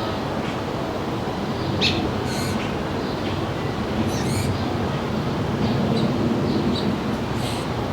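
Small birds chirping at a backyard feeder, short high calls scattered through, over a steady low rumble from a source the material doesn't name.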